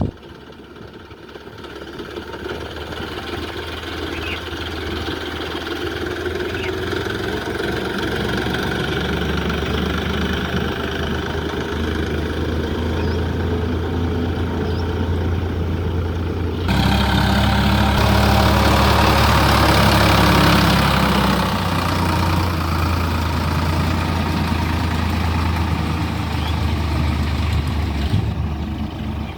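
Tractor engine running steadily, growing louder over the first few seconds. About seventeen seconds in the sound changes abruptly and gets louder for a few seconds, then eases back.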